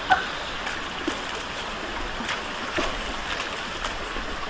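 Running water with small scattered splashes and ticks over a steady wash.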